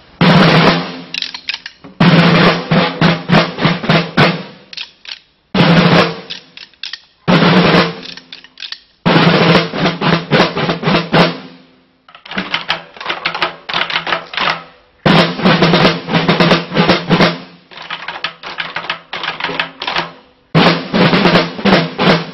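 A corps of children's field drums (rope snare drums) playing a drum aubade: phrases of rolls and rapid beats, each broken off by a brief pause.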